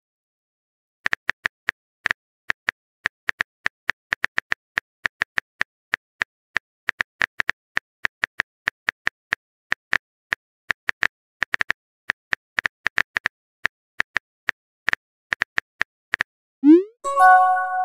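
Phone keyboard tap sounds from a texting app: rapid, irregular clicks, several a second, as a message is typed. Near the end comes a quick rising swoop followed by a short chime as the message is sent.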